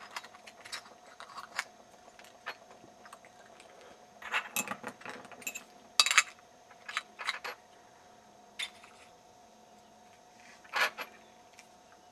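Metal parts of a Stanley deadbolt being handled and set down: scattered clicks and clinks in small clusters, the sharpest about halfway through.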